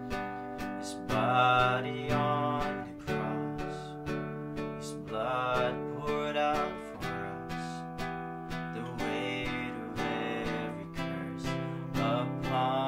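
A man singing a slow worship song in phrases, accompanying himself on a steadily strummed acoustic guitar.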